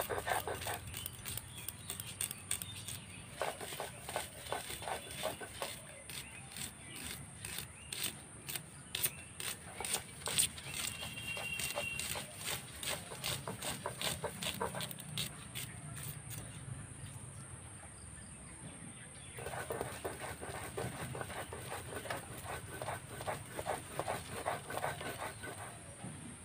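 Red onions being sliced by hand against a boti, a curved upright cutting blade: runs of quick, crisp cutting clicks with pauses between them.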